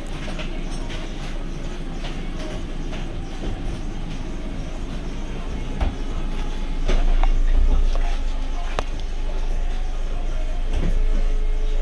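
VW Eos folding hardtop opening: the roof's electro-hydraulic pump running, with clunks and clicks as the roof panels unlatch and fold back, getting louder partway through. Near the end the pump's whine rises slowly in pitch.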